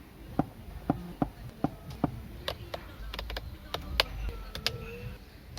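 A series of light, sharp clicks, about two to three a second and unevenly spaced, with a faint short tone near the end.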